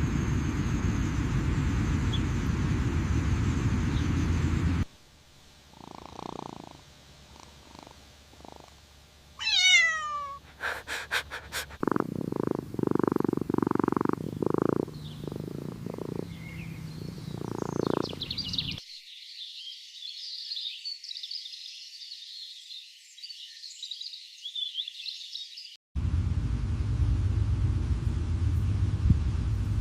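Cat sounds, short purring or meowing bursts, in the middle of the stretch. They sit between a steady low rumble at the start and end, a falling whistle-like glide and quick clicks just before, and a high twittering sound after.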